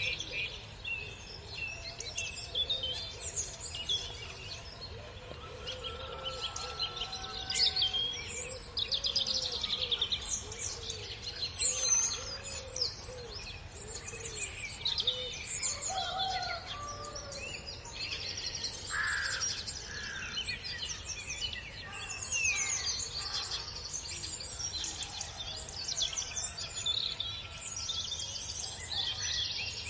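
Many birds chirping and singing at once, short chirps, trills and whistles overlapping without a break.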